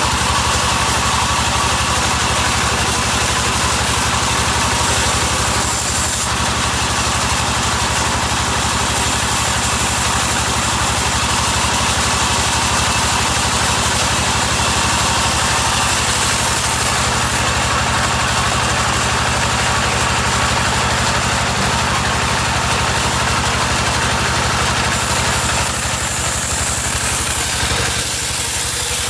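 Sawmill machinery running steadily: a loud, continuous engine-like drone with a fast, even low pulse and a wide hiss above it, with no distinct cuts or pauses.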